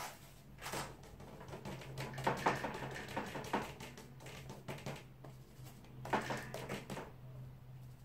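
A paintbrush working in a ceramic paint dish: bunches of quick small clicks and scrapes as the brush is dabbed and tapped against the dish, over a faint steady low hum.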